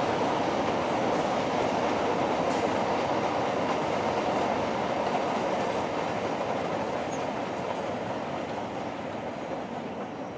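Grain train hopper wagons rolling along a narrow-gauge track, the rumble fading steadily as the tail of the train moves away.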